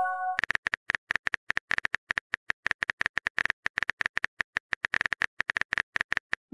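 Rapid, even keyboard-typing clicks, about eight a second: the typing sound effect of a texting-story app. Near the start, a short chime tone from a new message fades out.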